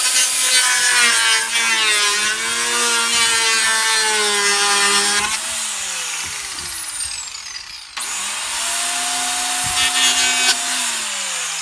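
Corded handheld power tool trimming a plastic 5-gallon bucket: the motor runs with a high whine and cutting noise, is released about five seconds in and winds down in falling pitch, then starts again about eight seconds in and winds down again near the end.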